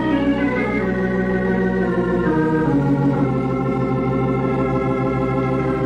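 Organ music bridge marking a scene change in a radio drama: sustained organ chords that step to new chords about two and three seconds in.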